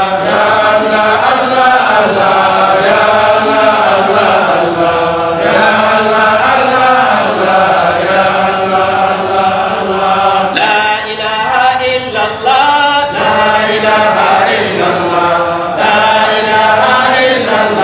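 Islamic dhikr chant: voices repeating 'Allah' over and over in a steady rhythm, led by a man chanting into a microphone.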